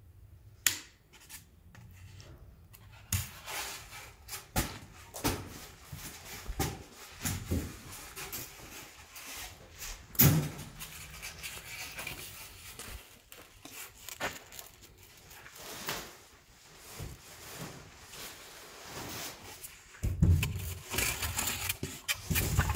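Polystyrene foam boards being handled and fitted: irregular rubbing and scraping with scattered knocks, one sharp knock about ten seconds in and a low rumbling stretch near the end.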